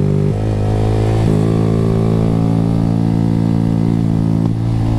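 Honda Grom's single-cylinder engine running loud through an aftermarket exhaust with its removable baffle taken out, pulling along at road speed. The engine note breaks and shifts pitch twice within the first second and a half, then holds steady.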